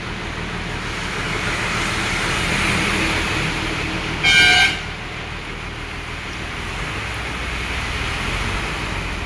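Road traffic with a vehicle engine running, and a vehicle horn sounding once, briefly and loudly, a little before the middle.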